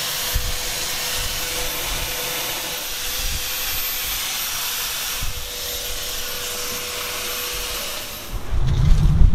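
Handheld electric fogging sprayer running steadily, its motor whining under a constant hiss as it mists decontamination solution. Near the end the whine stops and a loud low rumble takes over.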